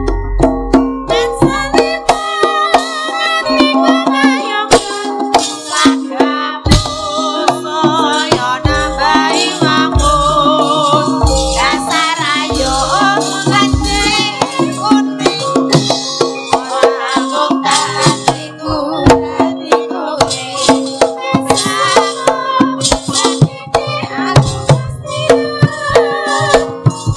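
Javanese gamelan music: metallophones playing a steady melody, kendang hand-drum strokes driving the rhythm, and a woman's voice singing over it.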